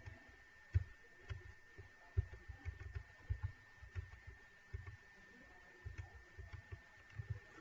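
Computer keyboard keystrokes: dull, irregular taps coming several a second in short runs. A faint steady high-pitched whine runs underneath.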